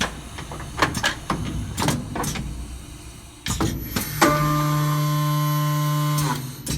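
Aluma RONDO 4000 corner-cleaning machine working: a run of irregular clacks and knocks, then about four seconds in a steady motor hum starts and runs for about two seconds before stopping.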